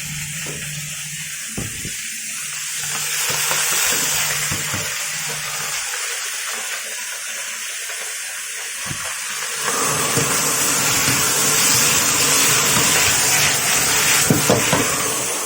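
Stir-fry sizzling in a hot wok as triangle-cut dried bean curd is fried with preserved vegetables, pork and garlic, with a few scrapes of the spatula. The sizzle grows louder and fuller about ten seconds in.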